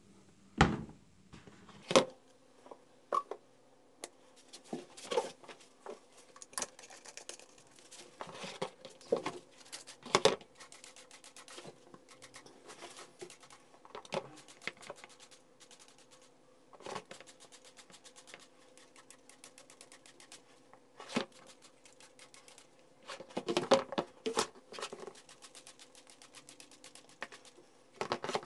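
Hands scrubbing and turning a plastic Mitsubishi coolant tank in a plastic basin of acid cleaner: irregular rubbing and scraping, with several sharper knocks of plastic on plastic and some wet sloshing.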